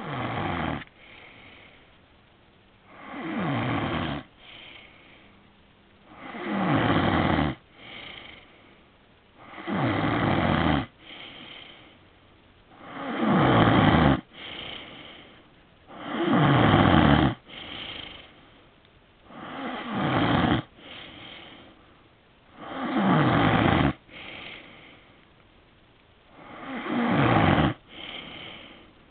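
A man snoring loudly in his sleep, about nine times. Each snore is a loud sound that falls in pitch, followed by a shorter, quieter sound, repeating steadily about every three seconds.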